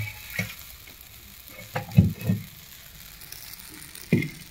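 Metal spatula stirring and knocking against an iron tawa of fried kurdai crumbs, a few short knocks with the loudest cluster about halfway through, over a faint steady sizzle from the pan on the wood fire.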